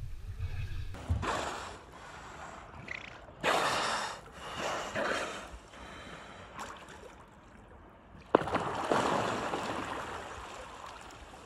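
Beluga whales surfacing beside a kayak, blowing through their blowholes in several short, breathy puffs, with water sloshing. A sudden knock about eight seconds in is followed by a longer rush of churning, splashing water that fades.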